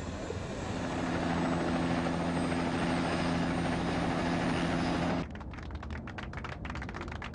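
A UH-1 Huey helicopter running steadily, its turbine and rotor giving a dense noise over a steady low hum. About five seconds in it cuts off abruptly and gives way to scattered hand claps from a small group.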